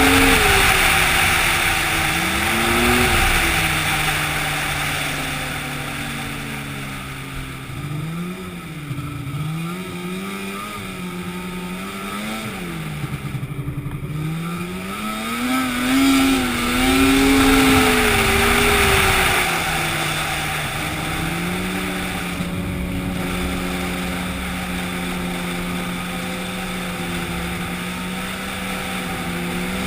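An engine running with its speed rising and falling over and over, as under changing load, then holding fairly steady for the last several seconds.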